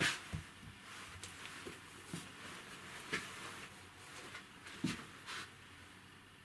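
Quiet handling sounds of packaging being unboxed: scattered light clicks, taps and rustles, the loudest right at the start and about three and five seconds in.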